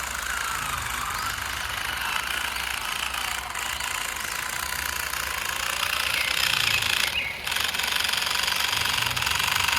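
Small electric motor and gears of a radio-controlled toy truck running steadily, briefly dropping off about seven seconds in.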